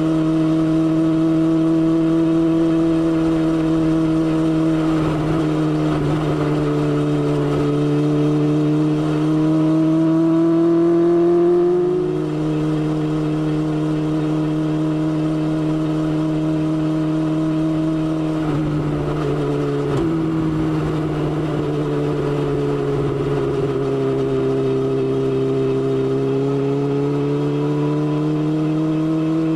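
BMW S1000XR motorcycle's inline-four engine running under way. Its note climbs gradually, drops sharply a little before halfway, dips again about two-thirds through, then climbs once more.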